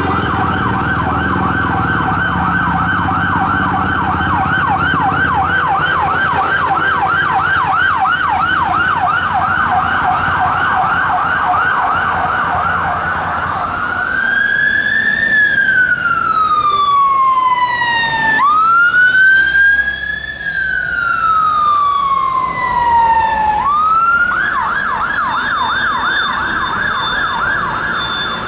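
Emergency-vehicle electronic siren on a rapid yelp, which switches about halfway through to a slow wail, rising and falling twice over about ten seconds, then returns to the yelp near the end.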